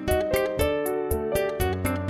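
Instrumental background music: plucked-string notes in an even, quick rhythm of about four notes a second.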